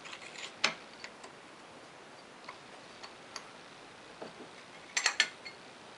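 Steel clamp parts and a wrench clicking and clinking against a metal shaper vise as the pieces are set in place: one sharp click under a second in, a few light ticks, then a quick cluster of metal clinks about five seconds in.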